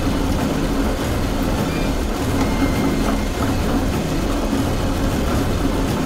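Animated factory conveyor belt running, as a sound effect: a steady mechanical rumble that keeps on without a break.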